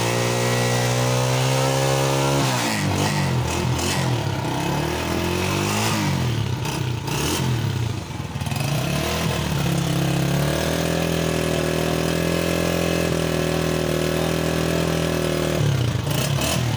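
Honda CG125's single-cylinder four-stroke engine running at a steady speed, then revved up and down repeatedly for several seconds, then settling back to a steady run.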